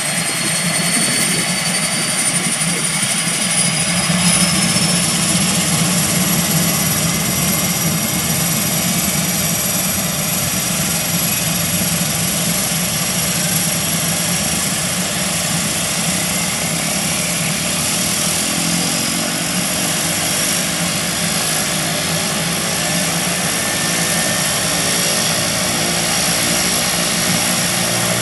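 Cessna 208B Grand Caravan EX's Pratt & Whitney PT6A turboprop starting up: the turbine whine climbs in pitch over the first few seconds, then settles into a steady high whine over the propeller's rushing noise as the engine comes up to idle.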